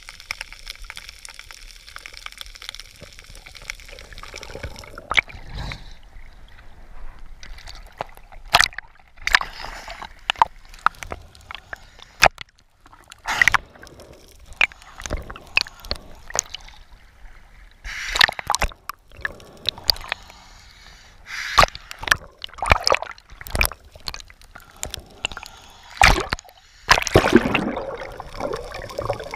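Underwater sound picked up by a camera below the surface: irregular sharp clicks and crackles, with several bursts of bubbling and rushing water, the longest near the end.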